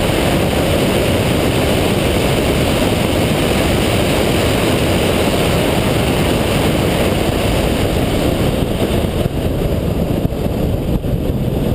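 Single-turbo Mazda RX-7's rotary engine running at speed on a track straight, mixed with a loud, steady rush of wind and road noise on the car-mounted camera's microphone. The hiss thins out a little in the last few seconds.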